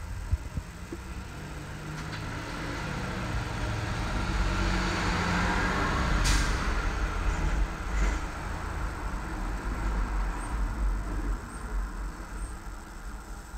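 A road vehicle passing by, its noise swelling up and then fading, over a steady low rumble. A short, sharp hiss comes about six seconds in.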